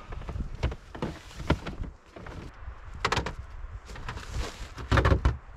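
Knocking and rustling as a stiff, frozen extension cord is stuffed into a Tesla Model 3's front trunk, then the frunk lid is pressed down and shuts with a heavy thud about five seconds in.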